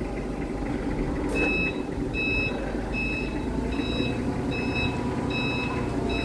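A truck's reversing alarm beeping at a steady pace, a little under a beep and a half per second, starting about a second and a half in, over the low running of a diesel engine as the truck backs up.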